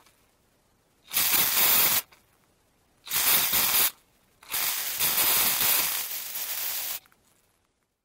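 Aerosol spray paint can hissing in three bursts: two short sprays of under a second each, then a longer spray of about two and a half seconds that drops a little in level before it stops.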